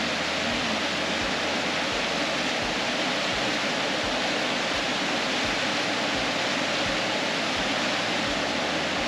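Muddy, rain-swollen river rushing over rock ledges in rapids close by, a steady loud rush of water.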